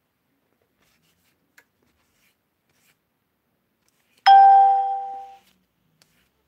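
A single bell-like chime about four seconds in, starting sharply and ringing out over about a second.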